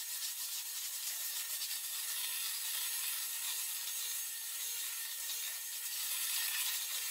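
Sped-up rubbing and scrubbing of cleaning, the rapid strokes running together into a steady hiss with no low end.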